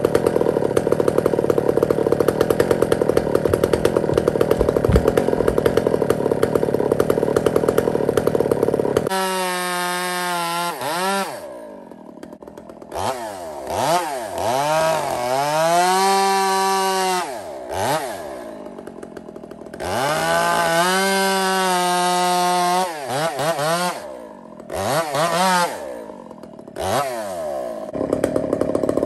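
A two-stroke chainsaw idles for about nine seconds, then bucks a log at full throttle. Its engine note drops and climbs again several times as the throttle is let off and squeezed between cuts, and near the end it settles back to idle.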